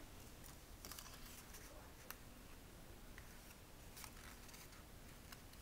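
Faint rustling and crackling of a folded origami paper unit being handled, a few soft crinkles spread through an otherwise near-silent stretch.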